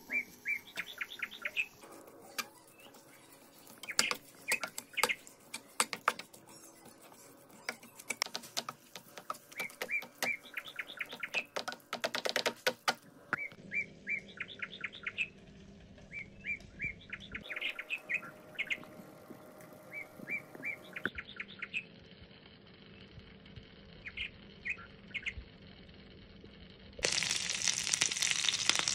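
Small birds chirping in quick repeated trains of high notes, over the occasional clack of a spatula stirring tomato masala in a pan. About two seconds before the end, curry leaves drop into hot oil and sizzle loudly.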